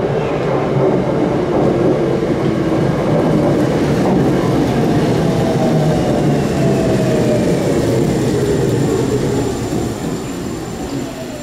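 Tokyo Metro 9000 series train pulling into an underground station and braking to a stop, rolling noise with the traction inverter's whine falling slowly in pitch as it slows.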